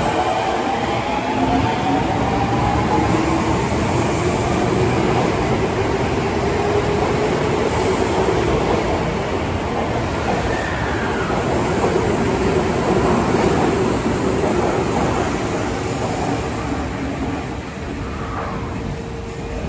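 Osaka Metro 21 series subway train pulling out of an underground station. The traction motors' whine rises in pitch as it accelerates over heavy running noise from the wheels on the rails. The sound fades near the end as the train clears the platform.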